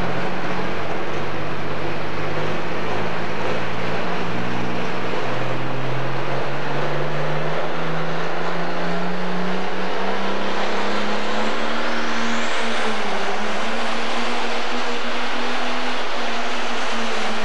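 Pro Stock pulling tractor's turbocharged diesel engine running loud at heavy throttle. Its pitch climbs steadily over the first dozen seconds, then holds high.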